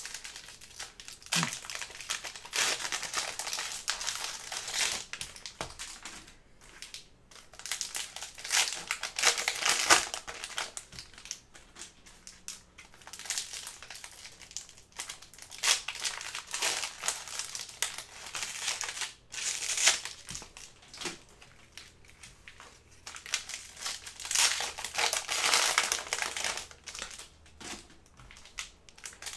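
Foil trading-card pack wrappers crinkling and rustling as card packs are opened and handled, in irregular bursts that come and go.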